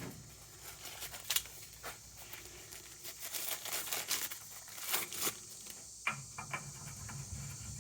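Rustling and scattered light clicks and knocks of parts being handled while a short piece of 3/4-inch pipe is picked out for the hydrant.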